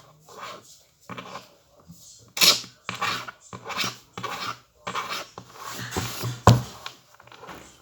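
Irregular rubbing, scraping and rustling handling noises, with one sharp knock about six and a half seconds in.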